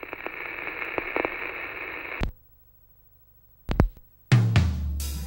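Vinyl record surface noise, a steady hiss with scattered crackles as the stylus rides the groove, cutting off with a click about two seconds in. After a short silence, a couple of soft thumps as the stylus is set down on the record, then the song's music begins near the end.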